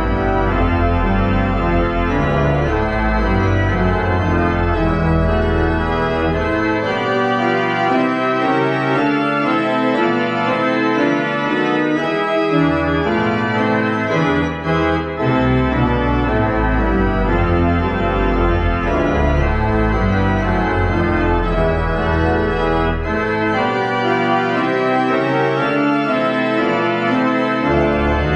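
Organ playing full sustained chords on the manuals over a deep pedal bass line. The pedal bass drops out twice, for several seconds from about six seconds in and again from about 23 seconds in, before coming back.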